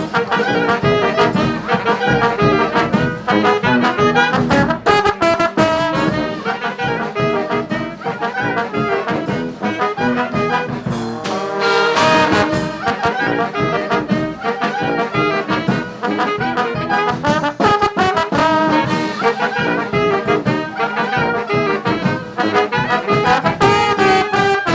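Street brass band playing a tune at full volume, horns over a steady beat, with a rising run of notes about twelve seconds in.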